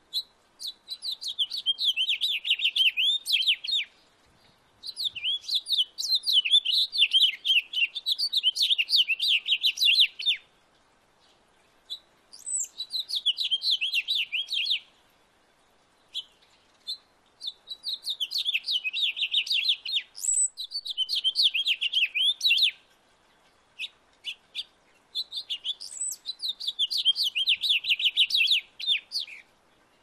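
Male house finch singing: five long songs of rapid, high warbling notes, each a few seconds long, separated by short pauses.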